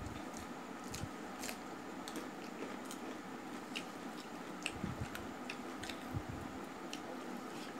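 Eating sounds from rice and chicken curry eaten by hand: chewing and wet mouth smacks, with scattered short clicks as fingers mix the rice on a steel plate, over a steady low background noise.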